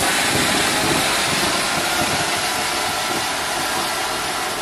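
Rajeshwari Fireworks multi-colour anar (flower-pot fountain firework) burning at full flow, with a steady rushing hiss of spraying sparks that eases slightly over the last couple of seconds.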